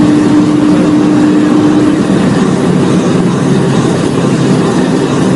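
Cabin noise of a modified BMW 135i's turbocharged straight-six at over 250 km/h: a loud, steady rush of wind and tyres over the engine. A steady engine tone stops about two seconds in as the car slows.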